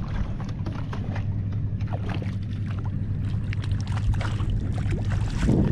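Water slapping against a fishing kayak's hull under a steady low wind rumble on the microphone. A hooked fish thrashes and splashes at the surface, giving short sharp splashes through the middle and a louder one near the end.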